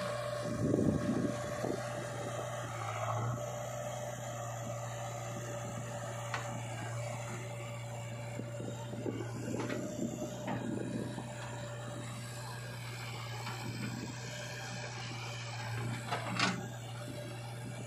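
Diesel engine of a JCB 3DX backhoe loader running steadily while its backhoe works, with a steady whine over the first two-thirds. A few short clatters and knocks come as the bucket dumps soil into a tractor trolley: near the start, about halfway through and near the end.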